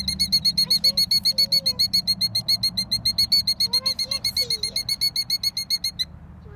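A nesting bird's rapid string of high, piercing alarm notes, about eight a second, given while it guards its eggs; the calling breaks off near the end.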